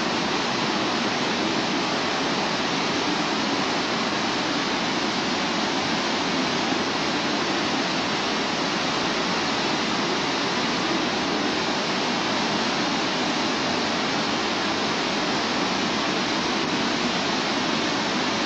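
A steady, even rushing noise that holds at one level without change.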